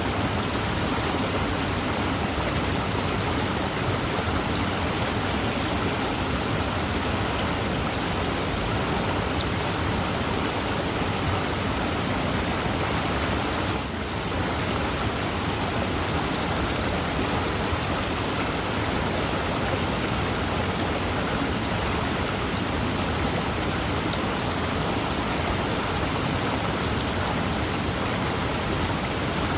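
Fast-moving river water flowing steadily: an even, continuous rush, with a momentary dip in level about halfway through.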